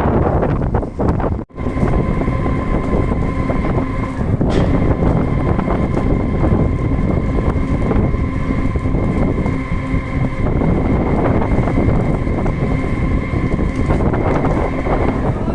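A boat engine running steadily with wind buffeting the microphone, broken by a brief gap about a second and a half in.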